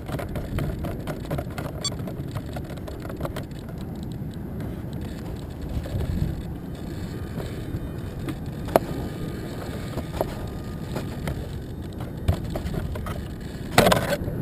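Wind buffeting a camera microphone close to the ground: an uneven low rumble with scattered small clicks, a sharp tick about nine seconds in and a louder crackling rustle near the end.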